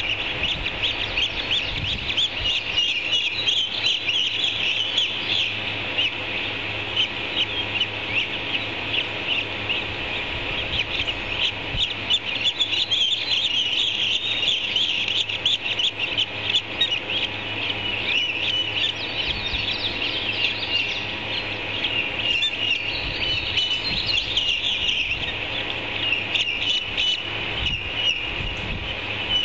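Ospreys at the nest giving rapid, high chirping calls, continuous and dense throughout.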